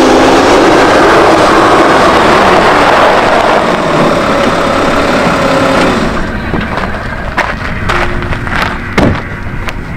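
Volkswagen Touareg SUV driving up and pulling to a stop, its engine and tyre noise loud for about six seconds and then dropping away. A few sharp clicks and knocks follow as the driver's door is opened and he steps out, with a heavier knock about nine seconds in.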